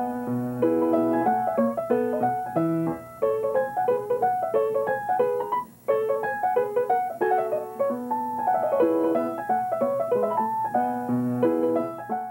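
A bright, bouncy piano tune of quick notes over a bass line: the show's closing theme music.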